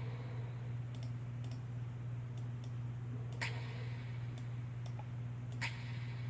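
Scattered sharp clicks at an irregular pace, two of them louder, about halfway through and near the end, over a steady low hum.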